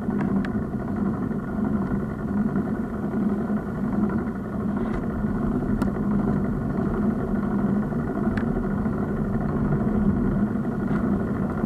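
Steady rumbling ride noise from a handlebar-mounted bicycle camera: tyres on the road and wind on the camera, with a few faint clicks.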